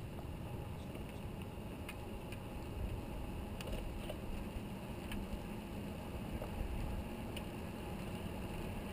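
Steady low rumble of wind on the microphone and tyres rolling on asphalt during a bicycle ride, with a few faint sharp ticks scattered through it.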